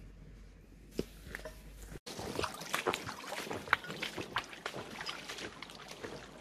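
Rubber boots wading through a shallow stream, a run of irregular splashing steps that starts abruptly about two seconds in. Before that, a quiet stretch with a single sharp knock.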